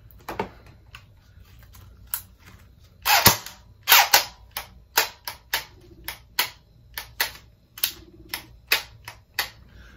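Lancer Tactical M4 SD airsoft electric rifle giving a series of sharp, dry clicks as its controls are worked, about two a second from a few seconds in, the loudest a heavier clack around the third and fourth second. No motor or firing sound follows: the owner thinks the battery is dead.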